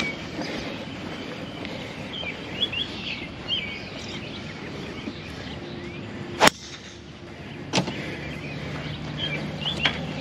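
Birds chirping, with one sharp crack about six and a half seconds in, a golf club striking the ball, and a second, smaller click just over a second later.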